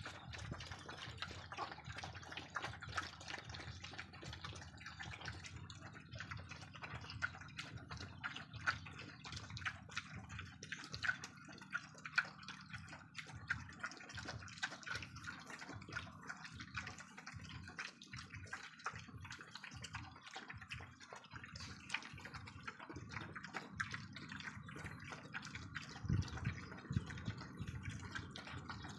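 Several dogs lapping and slurping watery rice mash from a shared trough: a dense, irregular run of quick wet clicks and smacks.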